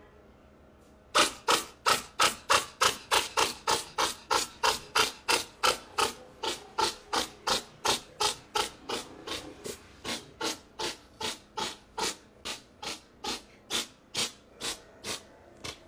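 A long, even run of sharp clicks, about two to three a second, starting about a second in and getting a little weaker toward the end.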